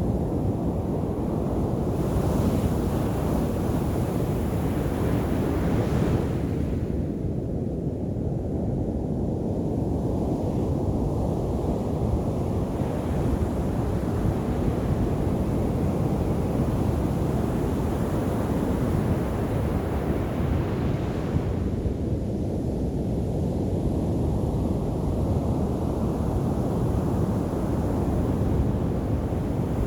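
Sea surf breaking and washing up the beach in a steady rumble. The hiss of the wash swells about two seconds in and again from about thirteen to twenty seconds. Wind buffets the microphone.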